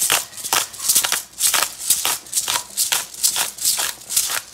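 Hand-twisted bottle-top black pepper grinder grinding peppercorns: a steady run of short rasps, about three a second.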